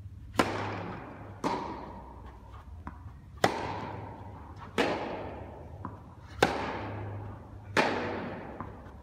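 Tennis ball struck back and forth by rackets in a groundstroke rally: six sharp hits, one about every one and a half seconds, each echoing around an indoor tennis hall, with fainter ball bounces between them. A steady low hum runs underneath.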